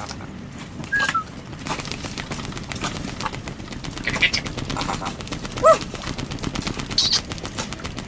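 African grey parrot picking at a woven wicker pot with its beak: a dense run of sharp clicks and crackles. A few short squeaks and whistles come from the parrot, one curling whistle about a second in and a rising squeak near six seconds.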